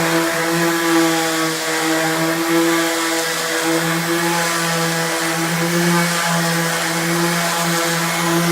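Electric power tool motor running steadily at constant speed, a continuous hum with a hiss above it.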